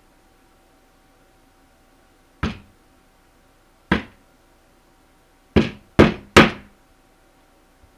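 Hammer tacking nails through the edge of a beaver hide into a wooden boarding board: five sharp strikes. One comes about two and a half seconds in, another near four seconds, then three quick ones close together.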